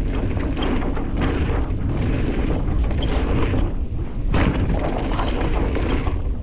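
Specialized Stumpjumper Evo mountain bike riding fast down a dirt jump trail: a steady low rumble of wind on the microphone and tyres on dirt, with knocks and rattles from the bike over the bumps, the loudest about four and a half seconds in.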